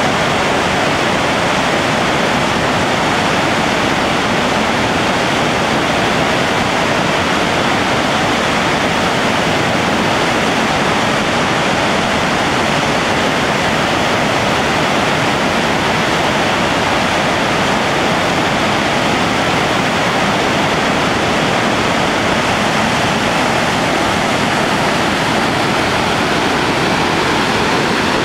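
The Merced River rushing through the rapids at Happy Isles, heard close as a steady, loud, unbroken wash of whitewater.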